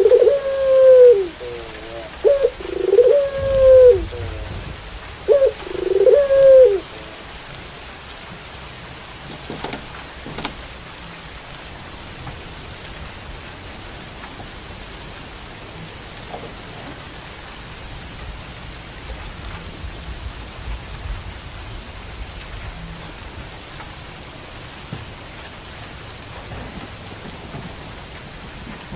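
A caged puter pelung, a long-voiced breed of domestic Barbary (ringneck) dove, cooing in four or five drawn-out phrases over the first seven seconds. Steady rain follows for the rest, with a couple of sharp clicks about ten seconds in.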